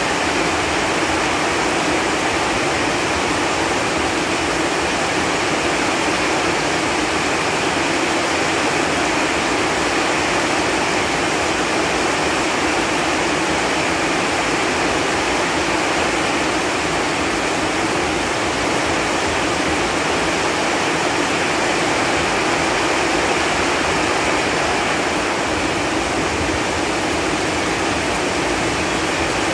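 Steady rain falling on leaves: an even, unbroken hiss of many drops.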